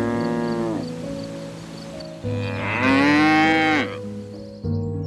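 Two long bovine moos, each bending down in pitch at its end, the second louder, over a soft music bed. Near the end the calls give way to music with bird chirps.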